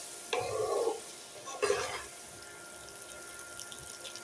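Wooden spatula stirring whole boiled hog plums through hot oil in a nonstick wok: two short scraping, sloshing strokes about half a second and a second and a half in, with the oil sizzling faintly in between.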